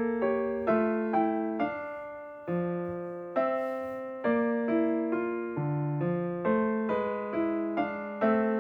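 Background music: a slow, gentle melody played on a solo piano, one note after another, each fading away.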